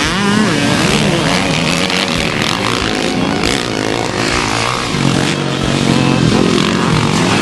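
Motocross dirt bike engines revving hard, their pitch repeatedly climbing and dropping as the riders accelerate and back off over the jumps. About five seconds in, one engine holds a steadier, higher rev.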